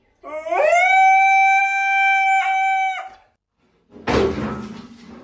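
A Siberian husky howling: one long howl that swoops up at the start and then holds a steady pitch for about three seconds. Near the end a sudden loud thump starts a rough, noisy stretch.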